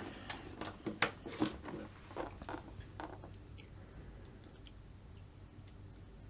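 Small handling sounds at a workbench: a scatter of light clicks and taps over the first three seconds, thinning to a few faint ticks.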